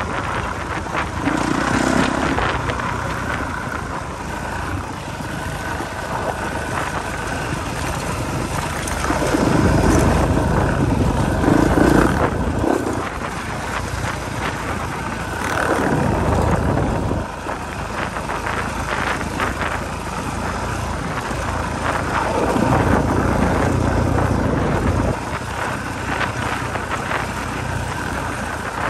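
2020 Honda CRF450R's single-cylinder four-stroke engine running as the dirt bike rides a gravel trail, with wind buffeting the microphone and swelling several times.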